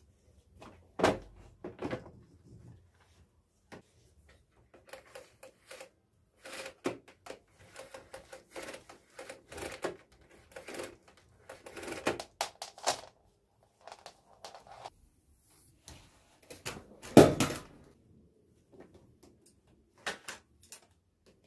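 Irregular knocks, clicks and rustles of household objects being handled in a small room, the loudest knock about seventeen seconds in.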